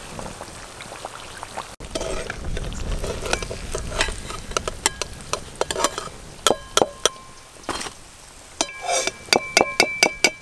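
Battered potato chops deep-frying in oil in a metal wok, sizzling and crackling. A slotted metal ladle clinks against the wok, in a quick run of ringing clinks from the middle onward.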